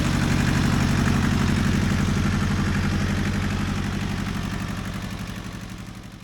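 Small Hinomoto E14 tractor engine idling steadily with an even, fast low pulse, freshly serviced. The sound fades away smoothly over the last few seconds.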